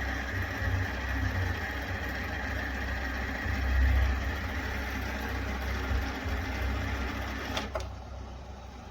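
A machine running with a steady hum and a heavy, uneven low rumble. A sharp click comes near the end, and the sound drops away after it.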